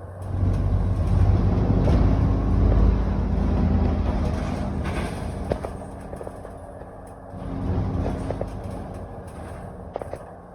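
ADL Enviro400 double-decker bus's diesel engine heard from on board, running hard under acceleration with a steady drone. It eases off about six seconds in, swells again briefly around eight seconds and then settles. A few short rattles and knocks come from the bus.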